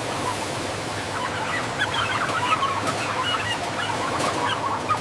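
A large flock of chickens calling together, many short overlapping clucks and chirps over a steady background noise.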